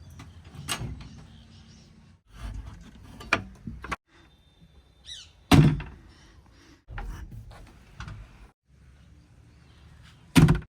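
Low diesel engine rumble of a JCB 3DX backhoe loader with four heavy thunks as it works the bucket while loading mud into a truck. The loudest thunks come about halfway through and near the end.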